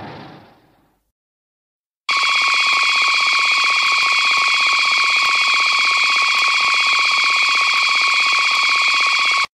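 A steady, buzzing electronic alarm tone starts about two seconds in and holds unchanged until it cuts off abruptly. Before it, the tail of a noisy rumble fades out within the first second.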